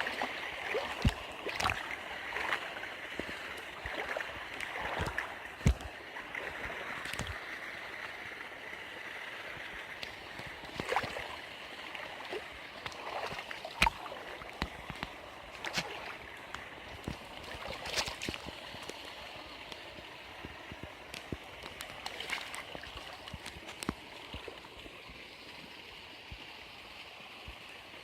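Waterfall and rocky stream: a steady rush of water with many short, sharp splashes and drips, easing slightly toward the end.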